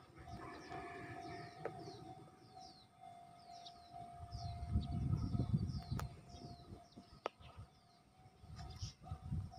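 Outdoor ambience of many short, repeated downward bird chirps over a faint steady siren-like tone. A low rumble swells and fades about five seconds in, with a single sharp click near its end.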